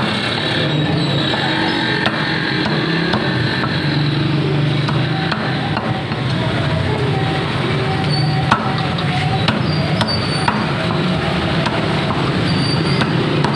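Heavy meat cleaver chopping raw chicken on a wooden chopping block: sharp knocks at irregular intervals, one louder than the rest about halfway through, over steady street noise.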